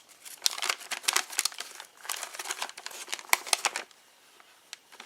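Folded paper instruction sheet being unfolded and handled, rustling and crinkling in a quick, irregular run of crackles that stops about a second before the end.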